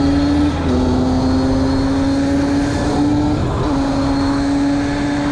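HM 50 cc two-stroke motorcycle engine pulling hard through the gears. Its pitch climbs steadily and dips at a gear change about half a second in, and again around three and a half seconds in.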